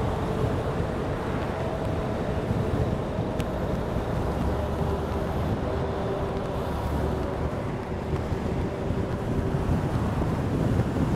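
Wind buffeting the microphone of an electric scooter ridden at about 35 mph, mixed with road and traffic noise. A faint steady whine runs under it through the middle.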